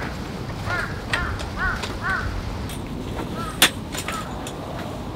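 A bird calling repeatedly, about six short calls, over a low steady rumble of wind. A sharp click comes about three and a half seconds in.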